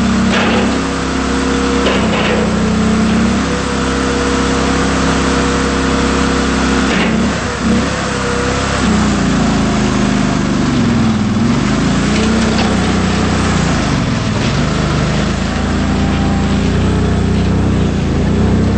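A 2006 Dandy Digger TLD-125 articulating wheel loader's engine running steadily, with a few knocks early on. In the second half its speed sags and picks up again several times.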